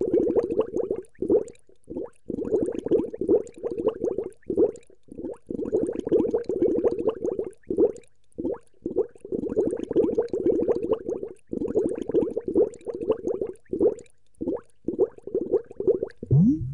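Irregular bubbling, gurgling sound, dense runs of short pops broken by brief gaps, with a few quick rising tones near the end.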